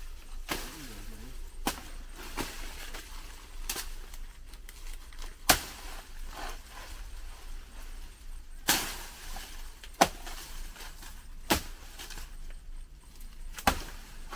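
A series of about eight sharp knocks and clicks at uneven intervals, the loudest a little past the middle.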